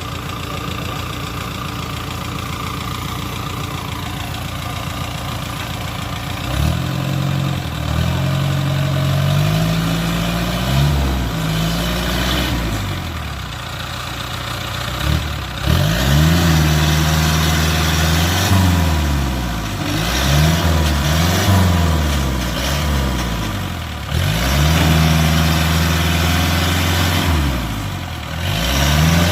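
Engine of a tracked paddy-field machine running steadily, then from about seven seconds in revved up and let down again and again as the machine strains through deep paddy mud.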